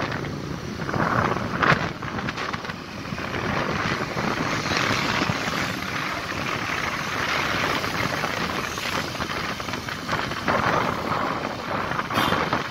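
Wind rushing over the microphone of a moving motorcycle, mixed with steady road and traffic noise.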